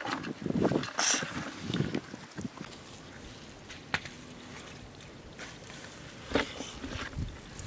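Bare feet scuffing and pushing sandy, stony ground, with irregular soft thumps and scrapes, a single sharp click about four seconds in, and a few more thumps near the end.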